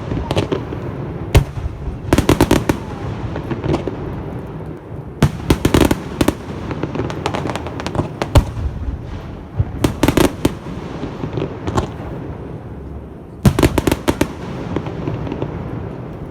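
Fireworks shells bursting close by in clusters of sharp bangs and crackles, about six volleys, the loudest coming about five seconds in and near the end. A low rumble carries on between the volleys.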